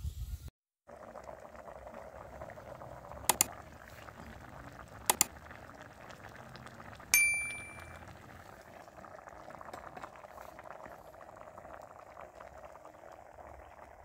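Fish-head broth boiling steadily in a steel wok over a wood fire. Over it come two quick double clicks and then a bright bell-like ding about seven seconds in that rings away over a second, the sound effects of a subscribe-button animation.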